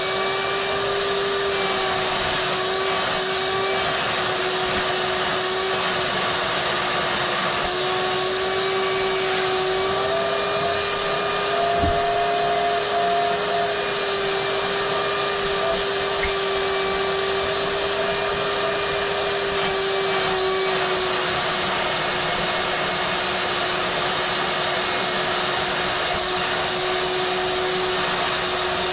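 Vacuum cleaner running steadily, a constant motor whine whose pitch wavers slightly partway through. A single short knock about twelve seconds in.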